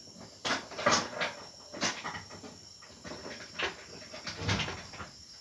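A dog making a series of short sounds, the loudest about a second in.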